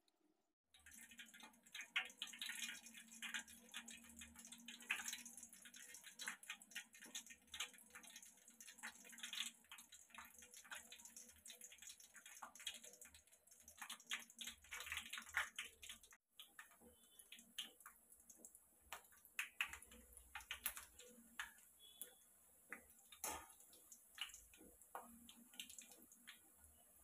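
Bread pieces frying in hot oil in a stainless-steel kadai: an irregular sizzling crackle of small pops, with a brief break about two-thirds of the way through.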